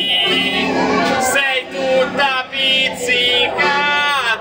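A man singing a stornello, a Tuscan folk verse from the Val di Chiana, solo and unaccompanied by other voices.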